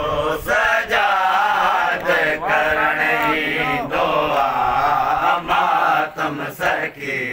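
Men's voices chanting a Sindhi noha (mourning lament for Imam Hussain) in long drawn-out sung lines, with hand strikes on the chest (matam) landing as sharp slaps between and under the singing.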